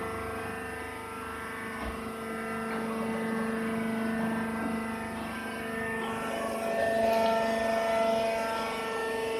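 Rice husk baling press running: a steady machine hum from its motor and pump, with a few steady pitched tones, a little louder about seven seconds in.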